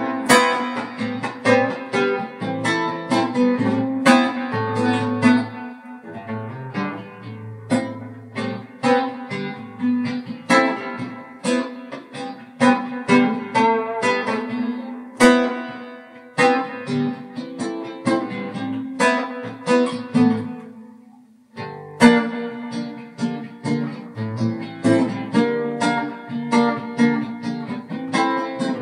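Guitar playing an instrumental piece: plucked notes over a repeated low bass note. About three-quarters of the way through the playing dies away to a brief pause, then starts again with a sharp strum.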